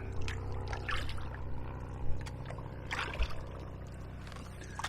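Kayak paddle strokes splashing in shallow water, with water trickling past, while paddling upstream against a strong current. A few sharper splashes fall in the first three seconds.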